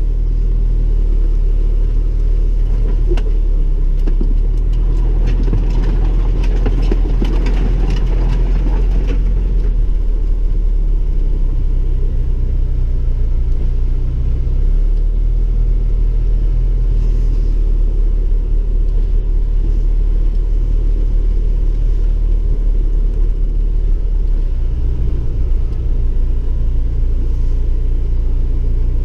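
1998 Chevrolet Tracker's four-cylinder engine running under way at low speed, heard from inside the cabin as a steady low rumble whose note shifts a few times as the revs change; the driver says the engine is running badly. A rougher crackling noise joins in for a few seconds early in the drive.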